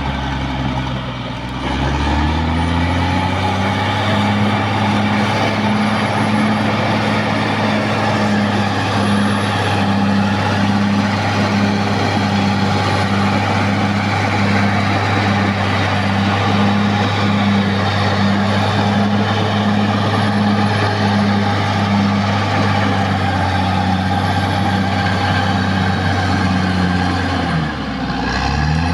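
Caterpillar D6R XL crawler bulldozer's diesel engine running hard at a steady high speed. Its pitch sags and recovers about a second in and again near the end.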